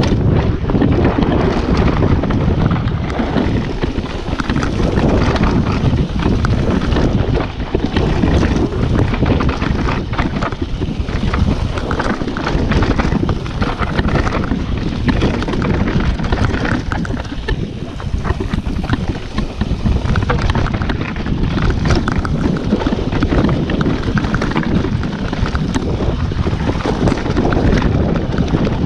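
Mountain bike ridden fast down a rough dirt trail: wind buffeting the camera microphone over the tyres rolling on dirt and stones, with frequent rattles and knocks from the bike over bumps.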